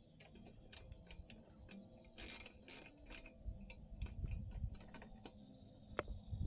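Scattered light clicks and taps of metal exhaust parts and hardware being handled, with a short rattling scrape a couple of seconds in.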